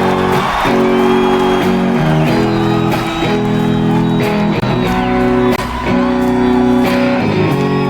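Concert recording of a rock band's song opening: a guitar playing soft, steady chords that change about once a second.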